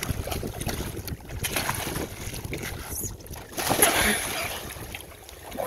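Water splashing and sloshing as a man hauls himself onto an inflatable paddle board from the shallows. About four seconds in comes a big splash as he slides off back into the water.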